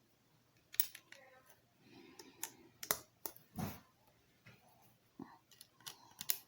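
LEGO pieces being handled and pressed together: a string of small, irregular plastic clicks and taps, with a duller knock about three and a half seconds in.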